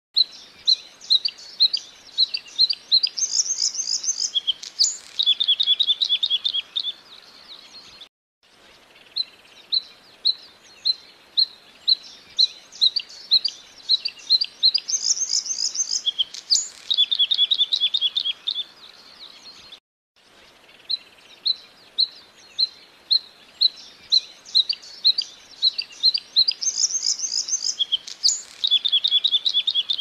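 Bluethroat singing: each phrase starts with spaced single ringing notes that speed up, then a high fast trill, a sharp note and a lower rapid trill. The same phrase comes three times, with brief cut-outs between.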